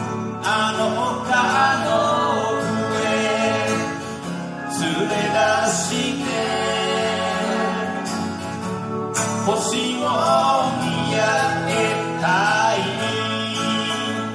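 Small live band playing a song: acoustic guitar strumming, with electric guitar and keyboard, and a singing voice over them.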